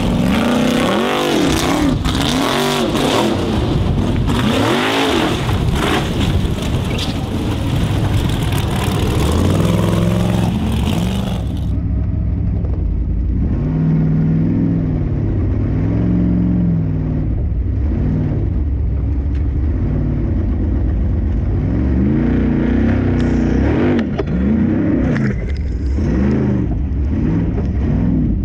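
Formula offroad car's engine revving hard. Its note rises and falls again and again in quick swells as the throttle is worked, with a steadier stretch in the middle. The sound turns duller about twelve seconds in.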